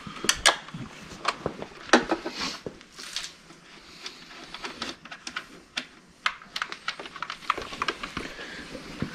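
Irregular sharp clicks and knocks of plastic and metal as a Honda Insight IMA battery module is handled and worked on by hand on a concrete floor, its connectors and frame being unclipped and shifted.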